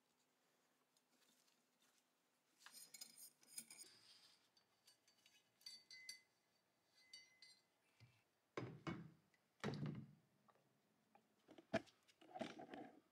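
Faint metallic clinks, light ticks and handling knocks of small steel and brass rifle parts, a brass inner magazine tube fitted into a steel magazine tube. Two duller knocks come in the second half, then a single sharp click and a short rustle near the end.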